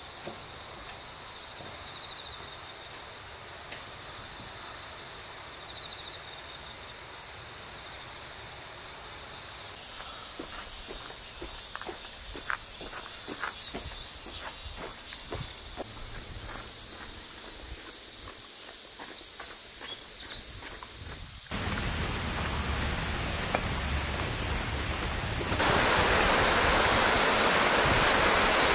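Steady, shrill chorus of insects chirring. From about ten seconds in there is a short run of footsteps. From about twenty-one seconds the rushing of a rocky mountain stream takes over and grows louder near the end.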